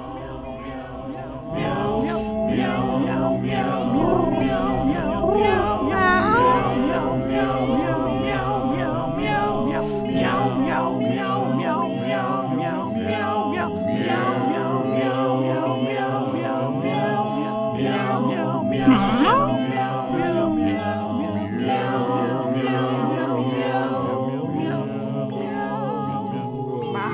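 A cappella vocal music: several voices singing in harmony over steady held notes.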